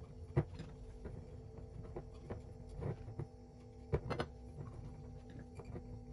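Fresh green chili peppers and fingers knocking and rubbing against a glass jar as the peppers are pressed in tightly for pickling: irregular soft taps and clicks over a faint steady hum.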